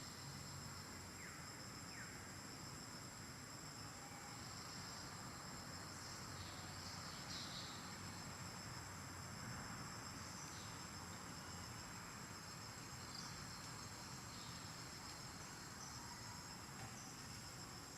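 Faint, steady insect chorus: a continuous high trilling of crickets or cicadas, with a few faint short chirps over it in the middle.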